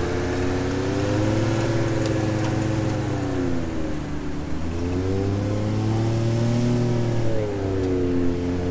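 A Ford F-150 pickup's engine revving under load, its tires spinning in soft sand as it is pulled out on a recovery strap. The revs ease off about halfway through and then climb again.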